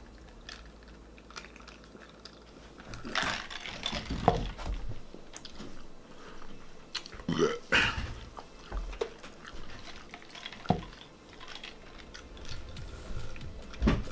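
A man eating and drinking during a speed-eating challenge: irregular chewing and gulping from a soft-drink cup, with scattered light knocks and clicks of items handled on the table.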